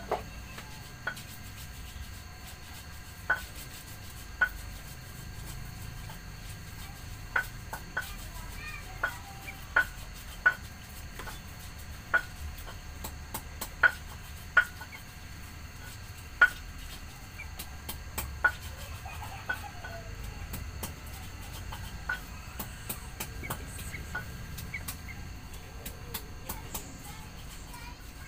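Sooty-headed bulbuls giving short, sharp chirps one at a time at irregular intervals, roughly one every second or two.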